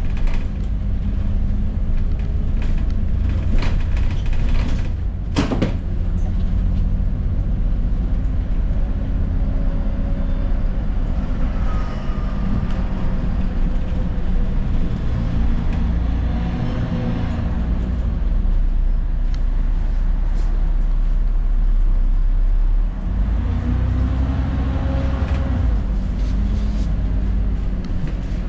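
Alexander Dennis Enviro400 double-decker bus running, with a low diesel rumble whose engine note rises and falls twice as the bus pulls away and slows. A sharp knock comes about five seconds in.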